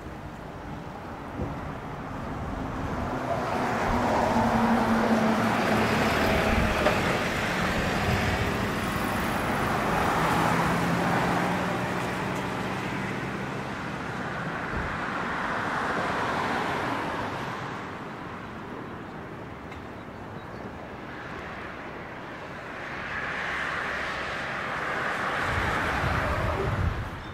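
Road traffic on a city street: about four vehicles pass in turn, each rising and fading away, with a low engine hum under the first half.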